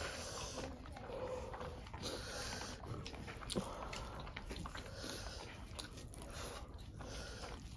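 Close-miked eating by hand: fingers squishing and mixing rice and curry on a banana leaf, with chewing and mouth noises, and a sharper click about three and a half seconds in.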